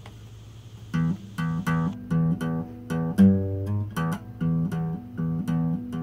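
Acoustic guitar playing a rhythmic chord pattern as a song intro, starting about a second in with about two to three strokes a second, and a louder low bass note ringing out near the middle.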